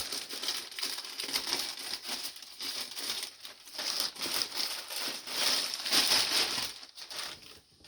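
Plastic bag crinkling and rustling as it is handled and torn open, a continuous irregular crackle that dies away near the end.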